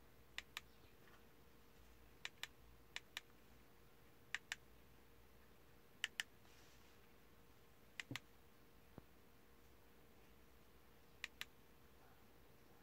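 Computer mouse button clicking, each click a quick press-and-release pair, about seven times at irregular intervals of one to two seconds, with one single lighter click. A faint steady hum lies underneath.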